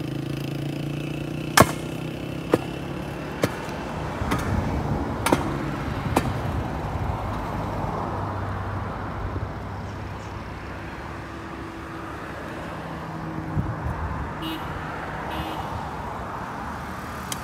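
Steady engine hum with a few sharp clicks about once a second in the first six seconds.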